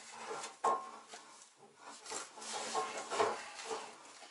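Oil pan being held and shifted up against the bottom of the engine block: irregular rubbing and scraping of the pan and its gasket, with a sharp knock about two-thirds of a second in.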